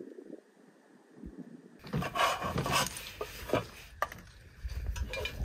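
Light knocks, taps and clatter of cookware and utensils being handled on a folding camp table, starting about two seconds in.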